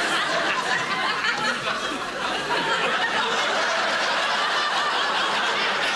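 Studio audience laughing, long and steady.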